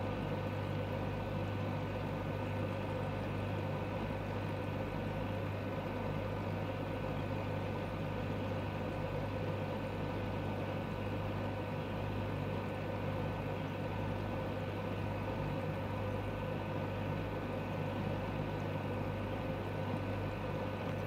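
Aquarium pump running with a steady, unchanging low hum.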